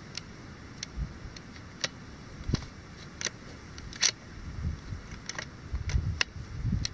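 Irregular light clicks and ticks, about a dozen, the sharpest about four seconds in, over a low wind rumble on the microphone that swells near the end.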